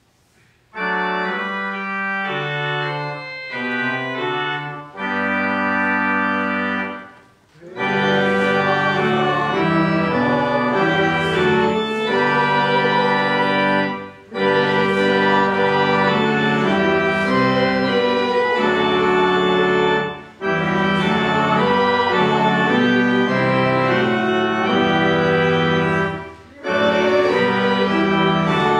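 Church organ playing sustained chords in hymn-like phrases, starting just under a second in, with a short break between phrases about every six seconds.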